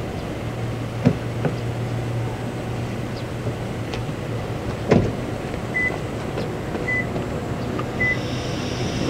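Railway station ambience: a steady low hum with a few sharp metallic clanks, and three short high beeps about a second apart in the second half.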